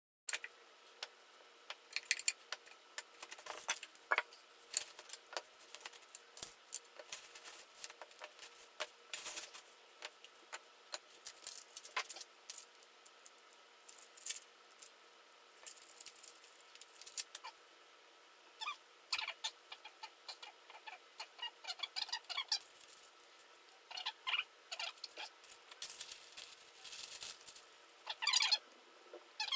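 Scattered light clicks and knocks with squeaky rustling, from furniture parts and packaging being handled, over a faint steady hum.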